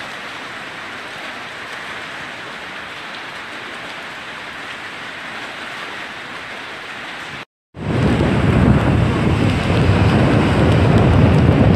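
Steady hiss of heavy hurricane rain and wind. After a cut about seven and a half seconds in, much louder gusting wind buffets the microphone with a deep rumble.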